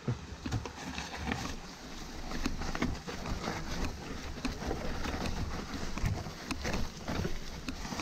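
Mountain bike rolling downhill over a leaf-covered dirt trail: steady tyre noise on dirt and leaves, broken by frequent knocks and rattles as the bike goes over bumps and roots.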